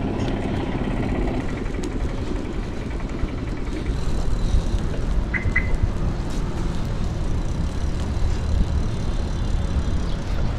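Steady low rumble of outdoor road noise, with a brief high double chirp about five seconds in.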